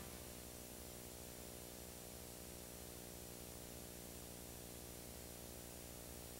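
Faint, steady hiss with a low electrical hum: the bare noise floor of the soundtrack, with no music or other sound.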